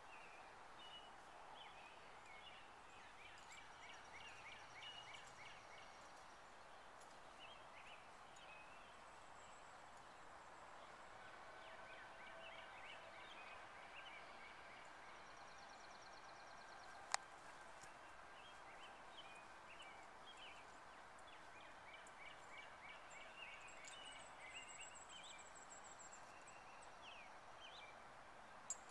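Quiet outdoor ambience: songbirds chirping and trilling over and over, above a faint steady hiss, with one sharp click about halfway through.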